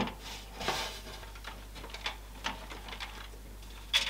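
Scattered light clicks and soft taps of small plastic connectors and cables being handled inside a PC case, with the sharpest click right at the start.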